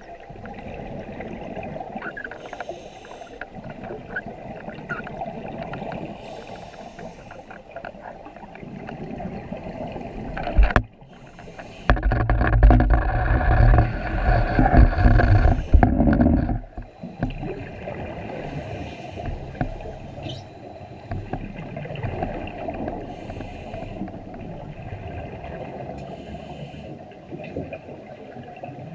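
Scuba diver breathing through a regulator underwater: a short hiss of inhaled air about every four seconds, and about twelve seconds in a loud bubbling rush of exhaled air that lasts some four seconds.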